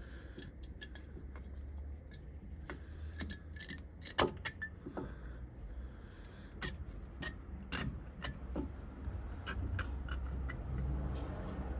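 Metal brake parts being handled and fitted on a car's front brake: scattered metallic clicks and clinks, the loudest about four seconds in, over a low steady hum.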